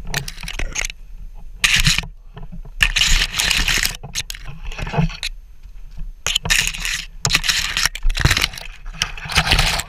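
Evergreen boughs brushing and scraping against a helmet-mounted camera as a climber pushes through them, in irregular rustling bursts of about half a second to a second each.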